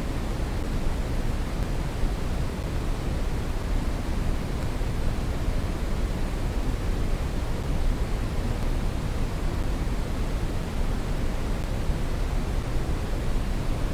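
Steady synthetic brown noise: an even, deep rushing hiss weighted toward the low end, with no change in level.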